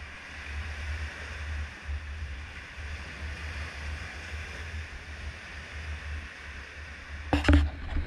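Small sea waves washing up onto a sandy beach in a steady hiss, with wind buffeting the microphone in an uneven low rumble. A sudden loud noise breaks in near the end.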